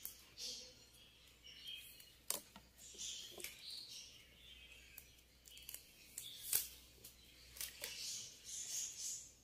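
Flat plastic basket-weaving wire scraping and ticking as it is threaded through the woven plastic basket and pulled, in scattered faint rustles and a few sharp clicks.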